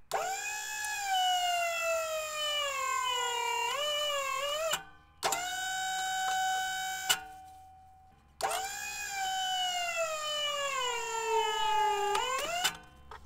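Electric motor of a cutter powered by a 12-volt car battery, cutting a catalytic converter on a nearly dead battery. Its whine falls steadily in pitch as it labours through the cut, stops, runs briefly at a steady pitch, then makes a second long falling run that cuts off near the end.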